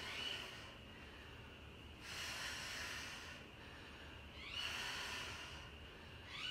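A woman breathing hard through a set of kettlebell goblet squats, with a loud breath about every two seconds, in time with the reps.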